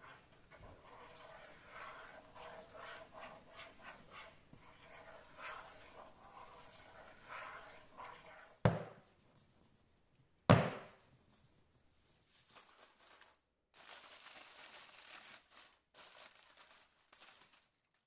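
A round aluminium cake pan full of batter dropped twice onto the counter, two sharp knocks about two seconds apart, to burst the air bubbles in the batter. Before that, a wooden stick swirls and scrapes through the batter in the pan; near the end, aluminium foil crinkles as it covers the pan.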